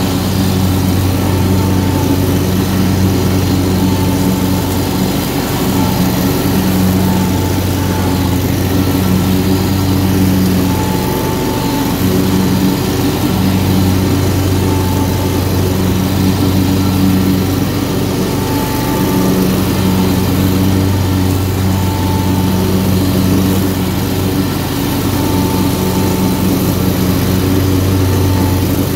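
Mower engine running steadily under load while cutting grass, heard up close, with its hum swelling and easing slightly every few seconds.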